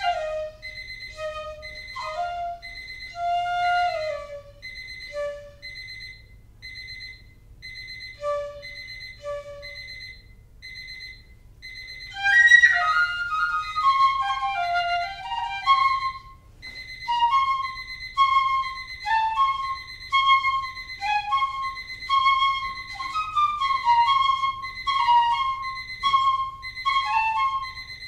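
Piccolo playing short, scattered notes, then from about twelve seconds in a louder, faster run of notes around a repeated high note. Under it an electronic alarm clock beeps in quick, even pulses at a steady high pitch.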